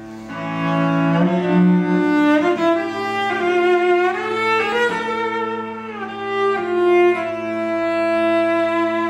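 Solo cello playing a slow melody over a held lower note, sliding between notes.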